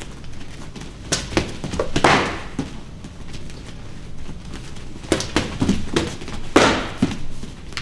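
Gloved punches and shin-guarded kicks landing on a training partner's double forearm block. They come in two quick flurries of several hits, the second a few seconds after the first, each ending in a louder, longer hit.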